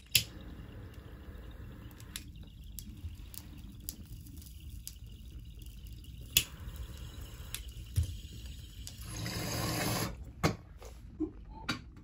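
Glass bong bubbling as smoke is drawn through its water and percolator, with a few sharp lighter clicks and a louder rush of air about nine seconds in.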